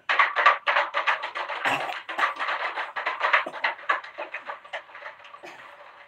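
Clear plastic water bottle crumpled and crushed by hand at speed, giving a dense run of crinkling crackles that thins out and quietens near the end.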